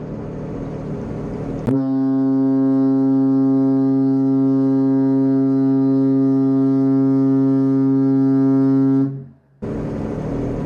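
A cruise ship's horn sounds one long, steady, low blast. It starts suddenly about two seconds in and lasts about seven seconds before cutting off. Before and after it there is the rushing noise of the jet ski on the water.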